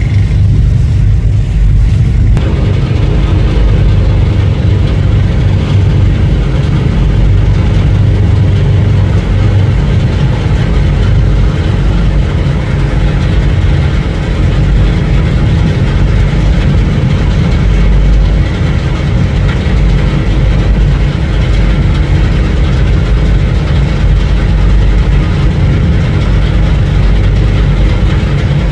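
Loud, steady low engine rumble with faint steady tones above it, from the passing container ship HMM Hamburg.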